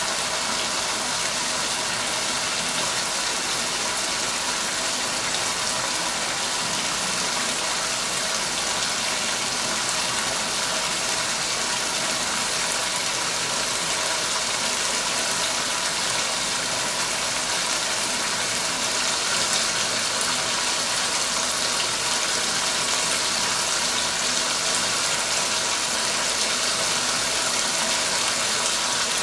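Chicken karahi gravy sizzling and bubbling in a pan over a gas flame, a steady hiss, with a faint steady hum beneath it.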